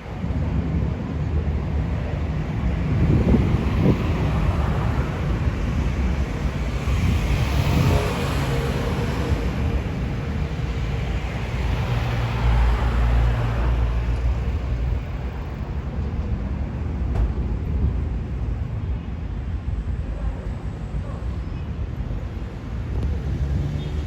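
Airliner cabin noise aboard an Airbus A319: a steady rumble of its IAE V2500 engines and the air rushing past, swelling and easing a little but never stopping.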